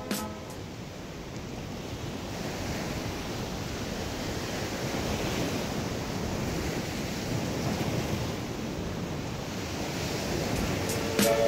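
Ocean surf breaking and washing up on a sandy beach, a steady rush of waves that swells and eases.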